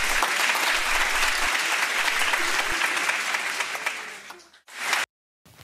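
Applause, many hands clapping steadily, fading out about four seconds in, then a short burst of noise.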